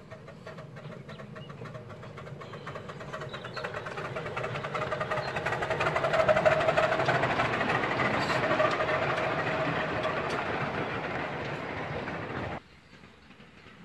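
Miniature railway train running past, growing louder over the first six seconds and then holding, with rapid rhythmic beats and a steady high tone through it. It cuts off suddenly about a second before the end.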